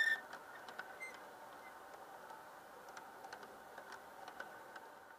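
Aristocraft G-scale model train cars rolling past on garden railway track: a steady rattling of wheels on the rails with scattered light clicks, and a short sharp metallic squeak with a click right at the start.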